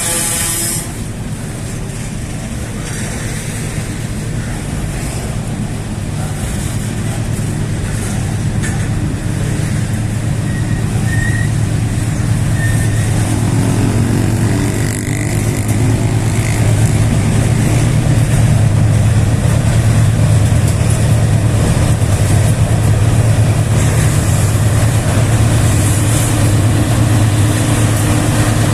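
Heavy diesel engines rumbling steadily, their low hum slowly growing louder. In the first second the last of a horn blast dies away.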